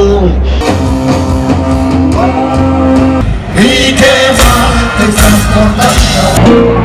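Live rock music with singing and guitar. The music changes abruptly about half a second in and again about three and a half seconds in, as different songs are cut together.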